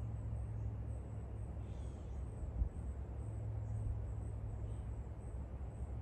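Outdoor garden ambience: a steady low rumble, with a faint high insect-like chirp repeating about twice a second. A faint high falling call sounds about two seconds in, and a single soft thump about half a second later.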